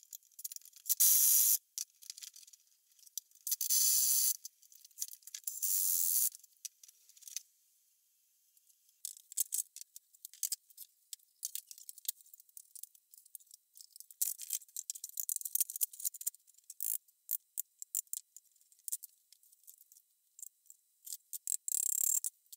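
Hand work on a clamped wooden frame: short scraping strokes of a tool on wood in separate bursts, then a run of small clicks, taps and rasps of parts being handled, with another scraping stroke near the end.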